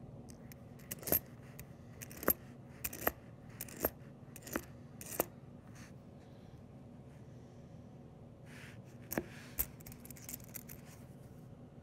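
Copper pennies clinking against each other as a stack from an opened roll is slid and spread apart by hand. About nine short, sharp clinks come at uneven intervals, most of them in the first half, with a soft shuffle and two more clinks near the end.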